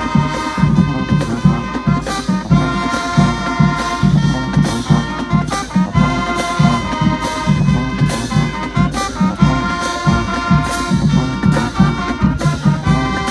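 Marching band playing live: a brass section holding loud chords over a steady beat of drum and cymbal hits.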